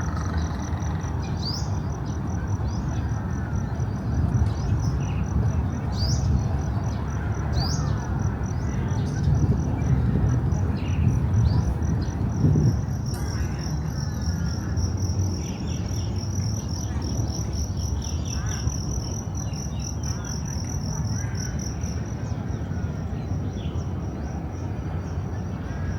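A high, rapidly pulsing insect trill, cricket-like, that grows much stronger about halfway through and fades near the end, over a steady low rumble. A few short rising bird chirps sound in the first half.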